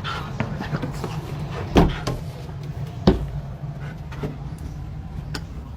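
A series of knocks and clicks, two of them loud, over a steady low hum.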